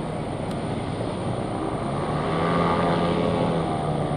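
An engine's steady drone that swells about two seconds in and eases off near the end, over a constant wash of wind and ship noise.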